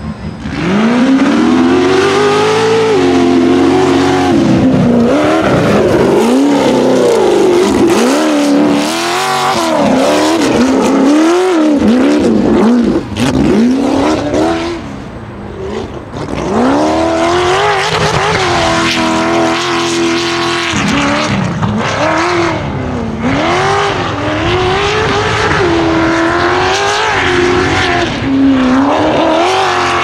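Off-road race buggy's engine revving hard and easing off again and again while driven flat out on a dirt track, its pitch sweeping up and down every second or two. The engine note briefly drops away about fourteen seconds in.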